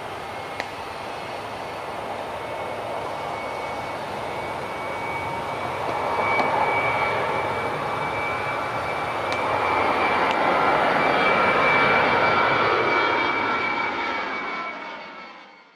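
Jet airliner's engines running as the plane passes, a steady rushing noise with a high whine through it. It swells twice, loudest near the middle, then fades out near the end.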